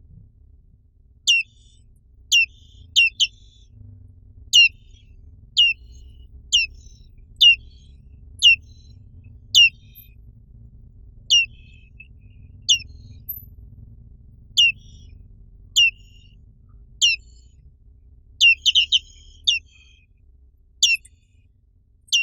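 Black-capped white-eye (Zosterops atricapilla) giving short, sharp calls that each sweep quickly downward in pitch, about one a second, with a quick run of three or four together near the end. A faint low hum sits underneath.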